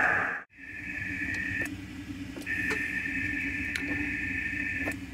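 Icom IC-705 transceiver: the hiss of band static from its speaker cuts out about half a second in as it switches to transmit. A steady two-note tone then sounds twice, briefly and then for about two and a half seconds, with a click at each start and stop, as the transmitter is keyed into the freshly tuned magnetic loop to check its SWR. A low hum runs underneath.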